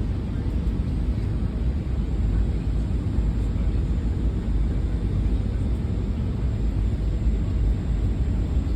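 Aircraft noise: a steady low rumble with no distinct tones or knocks.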